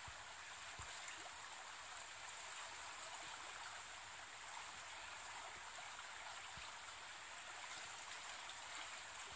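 Small stream of running water flowing steadily out of a brick culvert, an even rush of water. A few faint low thumps sit under it.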